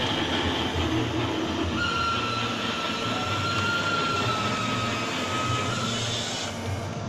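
Working model train running along its track, with a steady high squeal for about four seconds in the middle.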